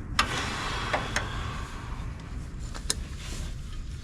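Metal hand tools clinking and rattling as a socket and extension are handled: a few sharp clicks, with a short rattle in the first half.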